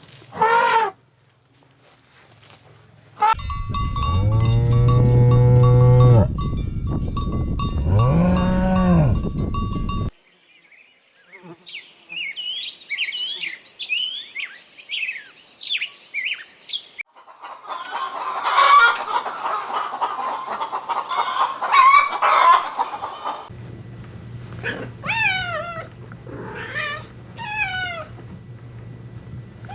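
Farm animal calls in turn: two long, low moos from a cow, then quick falling high-pitched chirps, and then a flock of chickens clucking and calling.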